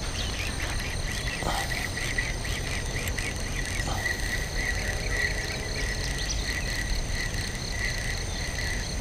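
Crickets and other insects trilling in a steady chorus, with one fast, pulsing trill standing out above several steady higher ones.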